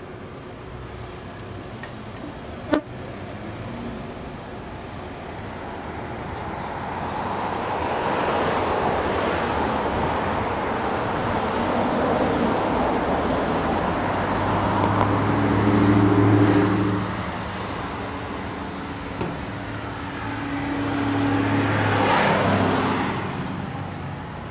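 Road traffic going past: vehicle engine and tyre noise builds up and swells twice, once around the middle and again near the end, with a single sharp click a few seconds in.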